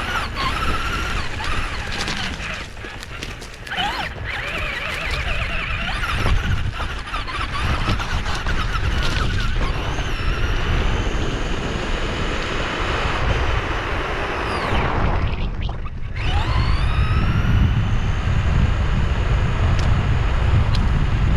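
RC car running, its motor whine wavering up and down in pitch with the throttle over a heavy low rumble. About fifteen seconds in the sound briefly drops away, then the whine climbs again as the motor spins back up.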